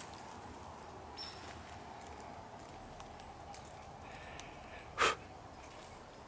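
Quiet outdoor stillness with soft footsteps swishing through tall grass, and one short, louder rustle about five seconds in.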